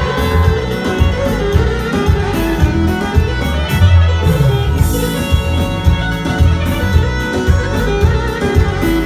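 Albanian wedding band playing an instrumental passage with a melodic lead over a steady beat, no singing.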